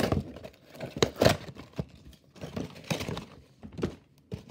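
Cardboard toy box being handled and turned over close to the microphone: irregular knocks, bumps and rustling of the box.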